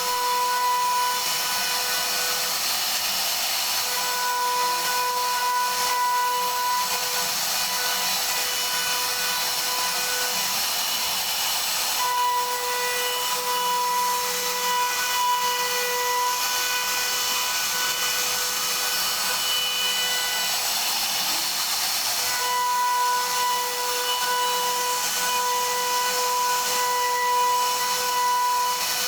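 CNC router spindle whining steadily as its bit cuts into wood, with a constant hiss of cutting. The whine grows stronger and weaker in stretches as the load on the bit changes.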